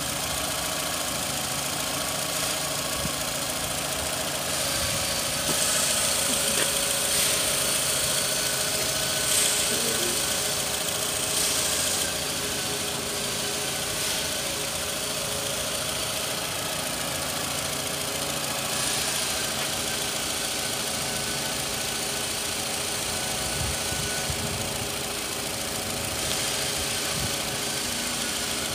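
Toyota Camry 2.4-litre VVT-i inline four-cylinder engine idling steadily.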